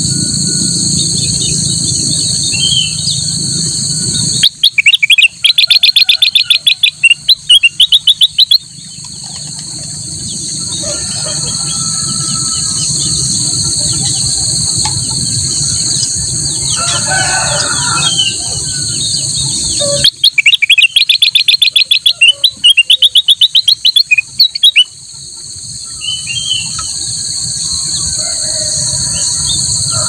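A caged kutilang emas, a yellow bulbul, sings two loud bursts of rapid repeated notes, each several seconds long: one about five seconds in and another about twenty seconds in. Between them a steady high-pitched insect drone carries on.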